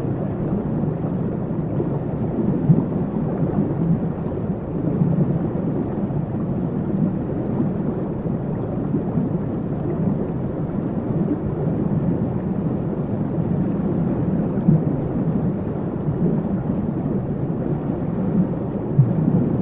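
Niagara Falls: the steady, deep rush of a large waterfall, heavy in the low range with little hiss.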